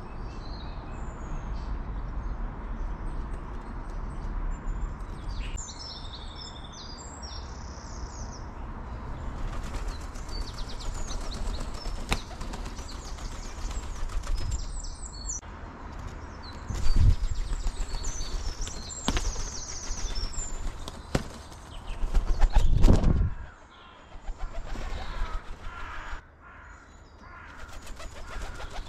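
Birds at a bird table chirping in short high calls on and off. Two loud low thumping rumbles come through, a brief one past the middle and a longer one about three-quarters of the way in.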